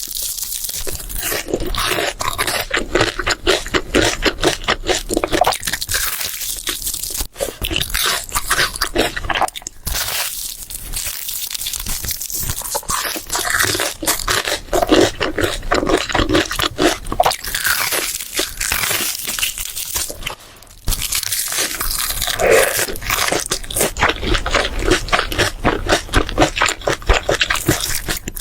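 Close-miked crunching and chewing of crisp food: a dense, continuous run of crunches with brief lulls.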